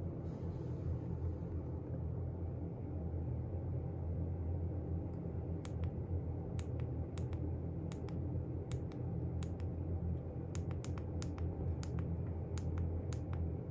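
A steady low hum, with a run of short, sharp clicks at irregular intervals starting about five and a half seconds in.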